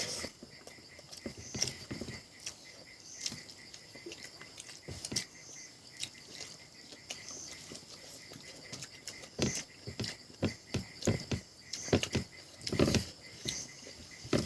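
Close-miked eating sounds: irregular wet chewing clicks and lip smacks, busier and louder in the last few seconds.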